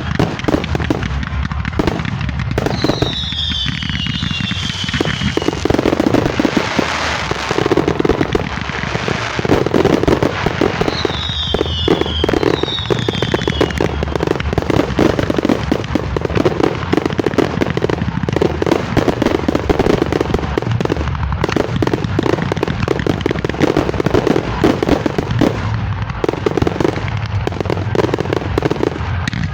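Fireworks going off in a dense, continuous barrage of rapid crackling pops and bangs, with a few short falling whistles cutting through.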